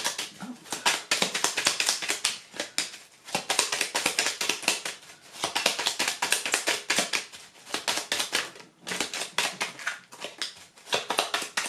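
A deck of fortune-telling cards being shuffled by hand: rapid papery clicking of the cards against each other, in several bouts with short pauses between them.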